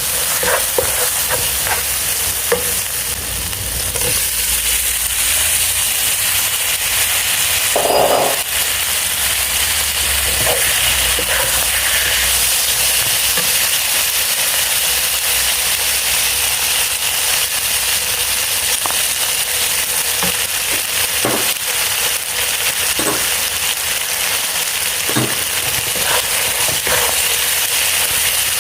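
Food sizzling steadily in hot oil in a pan while it is stirred, with scattered clicks and scrapes of the stirring utensil and a brief louder knock about eight seconds in.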